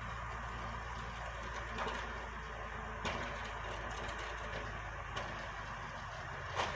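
Bucyrus dragline's engine running steadily with a low hum, broken by four short sharp knocks, the loudest near the end.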